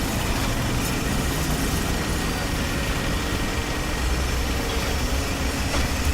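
Heavy machine engine running steadily, a low rumble under a noisy mechanical hiss.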